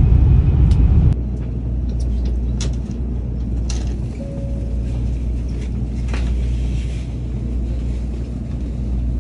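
Low rumble of a Shinkansen running, heard from inside the carriage for about a second, then the steady low hum of an N700-series Shinkansen train standing at a platform, with a few faint clicks and a short beep about four seconds in.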